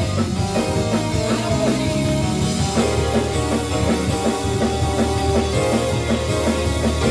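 Gospel praise-and-worship band music with a steady drum beat.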